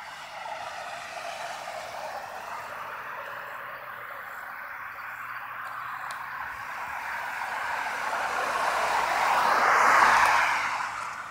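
A car passing by: its tyre and road noise builds slowly to a peak near the end, then falls away quickly as it goes past.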